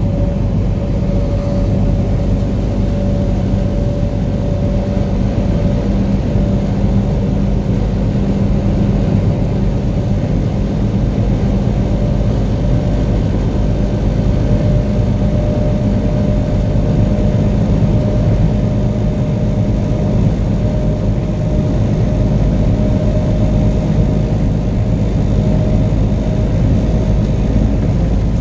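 Steady drone of a truck's engine and tyre noise heard from inside the cab while cruising at an even speed, with a faint steady whine above it.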